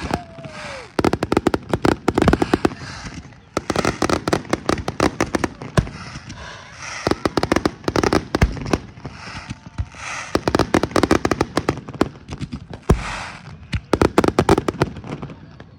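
Fireworks display going off: volley after volley of rapid crackling pops, each cluster lasting a second or two with short lulls between.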